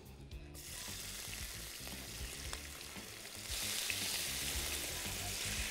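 Diced marinated chicken breast sizzling as it hits hot oil in a very hot pan. The sizzle starts about half a second in and grows louder about three and a half seconds in.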